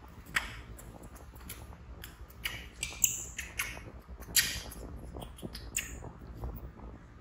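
A baby monkey's short, high squeaks, a scattered string of them, loudest about three and four and a half seconds in.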